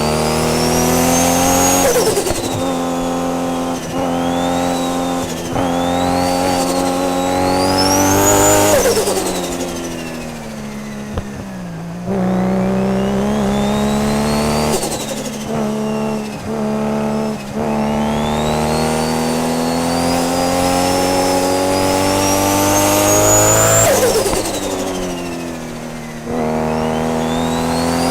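Tuned Nissan R32 GT-R's RB26 straight-six running under load, its engine note climbing slowly through two long pulls and dropping back after each, about nine seconds in and again near the end. A high whine rises and falls above the engine note.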